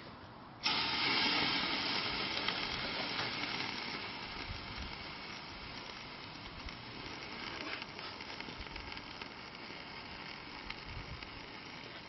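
Loud hissing from inside a microwave oven as a small umbrella burns and the cavity fills with smoke. It starts suddenly about a second in and slowly fades.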